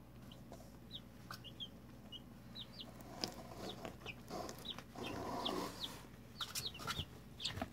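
Two-week-old pullet chicks peeping, many short, high chirps that slide down in pitch, while they peck feed from a hand, with scattered soft clicks of the pecks and a brief rustle about five seconds in.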